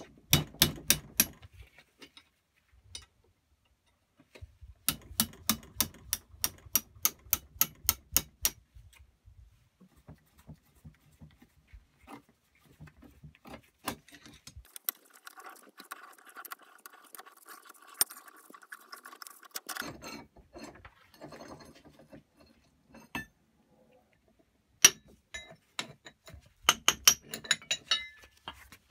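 Hammer and hand tools on a rusty cast-iron Record No. 5 bench vice being dismantled, making sharp metal taps and clinks. There are runs of quick, evenly spaced taps near the start and near the end, with a quieter stretch of scraping and scattered clinks in the middle.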